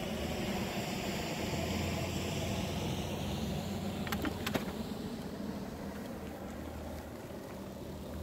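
Steady low engine hum, with the rolling and wind noise of a moving bicycle and a few sharp clicks about four seconds in.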